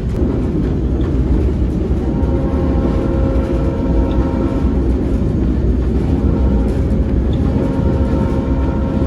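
Passenger train running along the track, heard from aboard: a steady low rumble, joined about two seconds in by a steady higher hum.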